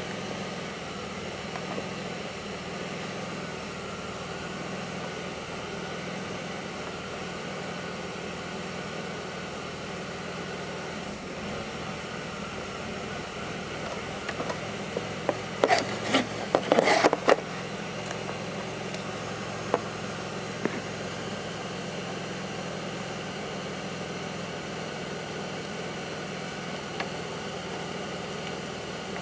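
2002 Pontiac Grand Prix 3800 V6 idling steadily; the owner is chasing a rough, bogging idle in this engine. About halfway through, a short cluster of sharp clicks and knocks is the loudest thing heard.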